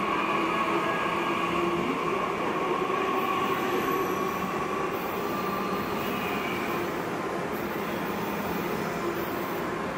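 Double-deck regional train rolling along a station platform, a steady running noise of wheels on rails with faint thin squealing tones from the wheels, easing slightly as the last car goes by.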